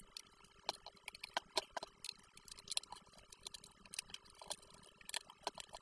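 Irregular light clicks and taps of a small screwdriver working the screws and handling the back housing of a Bang & Olufsen Beoplay A2 Bluetooth speaker being disassembled.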